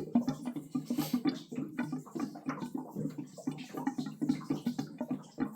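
Water gurgling and spluttering through the held-open temperature/pressure relief valve of a Megaflo unvented hot-water cylinder, in quick irregular pulses as air is drawn in to recharge the cylinder's air bubble.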